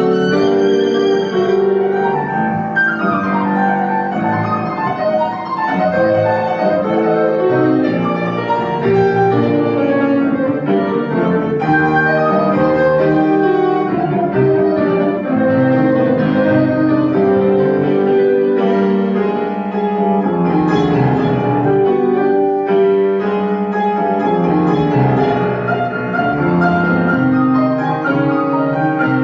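Violin playing a classical piece with piano accompaniment, the violin's notes held with vibrato over the piano's chords.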